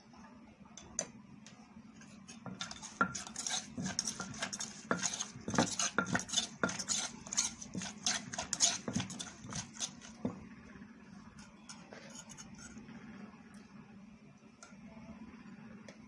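Wooden pestle pounding chilies and seasonings in a clay som tam mortar: a quick run of sharp knocks that starts about two and a half seconds in and stops about ten seconds in, with only a few scattered knocks around it.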